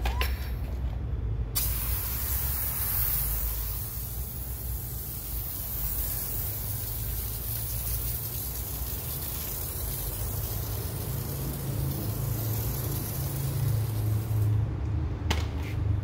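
IK Pro 2 hand-pump pressure sprayer spraying car-shampoo foam onto the car in a steady hiss. It starts about a second and a half in and cuts off sharply near the end, followed by a few clicks.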